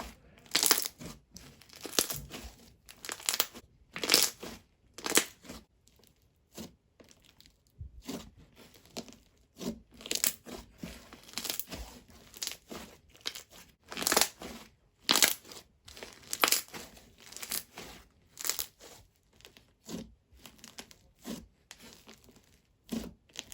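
Slime being squished and pulled by hand, giving crackly, crinkly pops in irregular bursts about once or twice a second.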